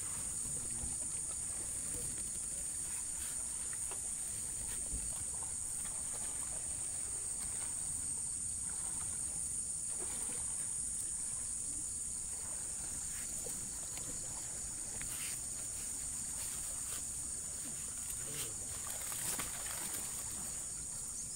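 Steady, high-pitched chorus of insects that runs on without a break, with a few faint knocks now and then.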